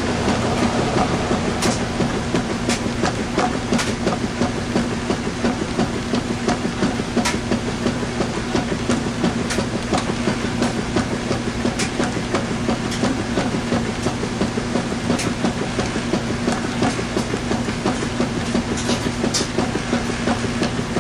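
Washing machine running mid-cycle with a load of towels: a steady motor hum under rapid, even, rhythmic churning, with scattered sharp ticks.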